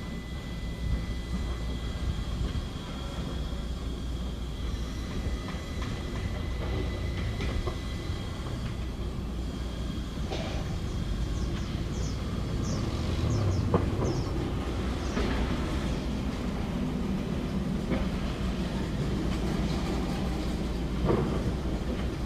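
Heavy machinery running with a steady low rumble, broken by scattered metallic clanks and knocks, most of them in the middle and one near the end, over a faint thin squeal in the first half.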